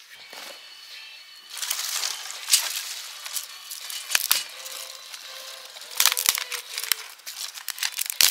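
Crackling, rustling handling noise with several sharp clicks, from leather-gloved hands working with wire and thin sticks.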